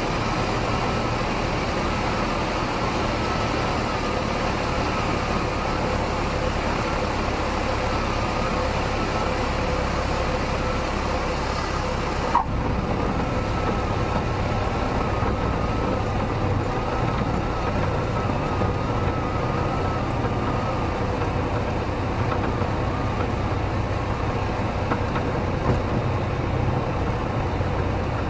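Cessna 150's Continental O-200 four-cylinder engine running at idle power, with propeller and steady wind rush on the outside microphone, through the landing and rollout. A single sharp knock comes a little before the midpoint, and after it the high hiss is weaker.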